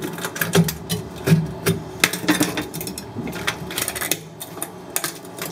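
Irregular clinks and knocks of glass aquarium pieces and tools being handled, several sharp strikes a second.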